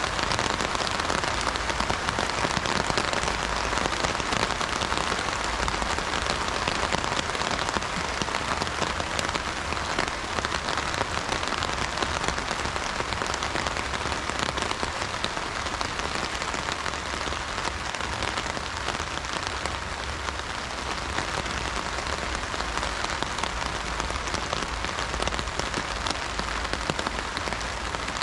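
Heavy rain drumming steadily on an umbrella overhead: a dense, even patter of drops with no thunder.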